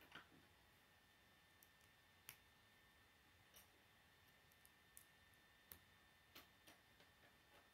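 Plastic K'nex rods and connectors clicking faintly as they are handled and snapped together, about seven separate clicks spread over several seconds.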